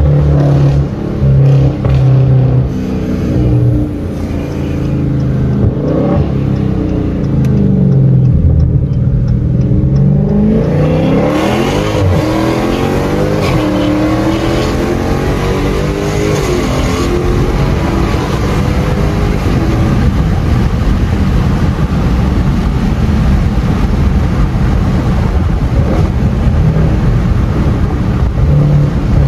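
Dodge Challenger Scat Pack's 392 (6.4-litre) Hemi V8 heard from inside the cabin: a steady low engine note at first, then the pitch rising as it accelerates hard from about eleven seconds in, settling into a steady drone with road noise at highway speed.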